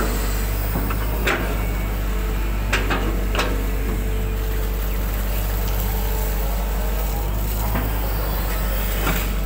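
Hitachi 120 hydraulic excavator's diesel engine running steadily under working load, heard from the cab, with a steady whine over the engine note and a few short sharp knocks as the bucket scrapes mud out of the ditch and lifts it.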